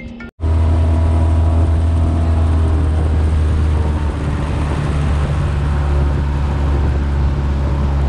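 An engine running steadily at a constant speed: a loud, even, low hum with a rushing noise over it. It cuts in abruptly after a brief silence about half a second in.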